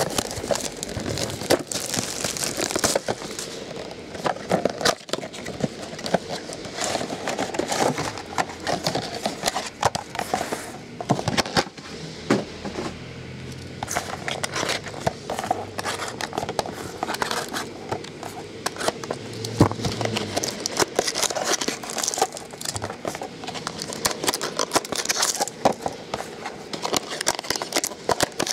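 Plastic shrink wrap and card packaging crinkling and tearing as a sealed trading-card box and its pack are unwrapped by hand, with many small clicks and crackles.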